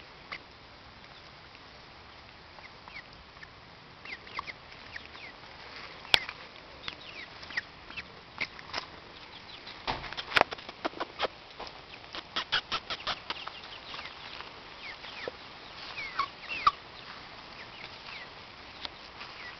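White chickens foraging and calling with short clucks and chirps, over a run of quick, sharp clicks that is thickest between about 8 and 14 seconds in.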